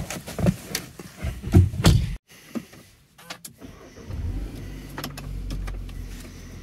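A few knocks and rustles, then about four seconds in a Volkswagen's engine is started by push button and settles into a steady low idle, heard from inside the cabin.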